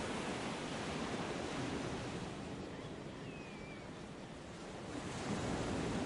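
Ocean surf washing in: a steady rush that ebbs about halfway through and swells again near the end.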